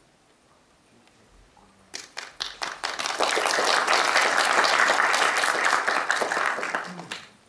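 Audience applauding: a few scattered claps about two seconds in swell quickly into full applause, which dies away shortly before the end.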